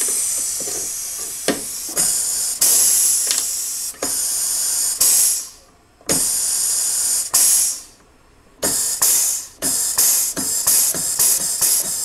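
Pneumatic air rivet gun hissing in repeated bursts as the trigger is squeezed again and again, straining to pull a stainless steel rivet through, with quicker, shorter bursts near the end. The gun can barely pull the stainless rivet and needs more air line pressure.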